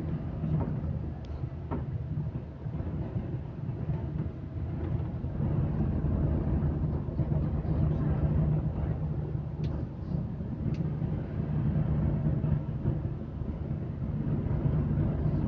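Passenger train running along the track, heard from inside the carriage: a steady low rumble with a humming drone and a few faint clicks.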